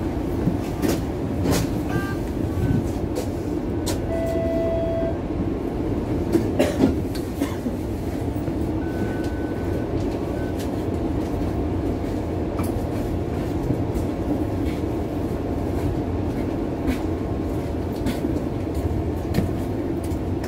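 Cabin noise inside a Bombardier Flexity Outlook low-floor streetcar: a steady low rumble with scattered clicks and a few short tones, and a brief cluster of louder knocks about six to seven seconds in.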